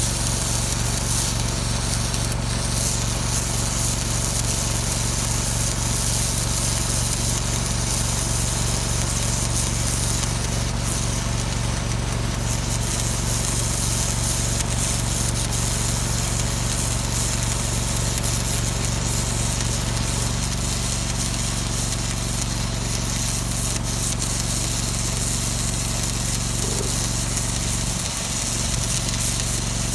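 Welding arc crackling and hissing steadily during a hard-facing pass, over the steady low running of a Miller Trailblazer engine-driven welder and an air compressor. About two-thirds of the way through, the low running changes as the compressor kicks out.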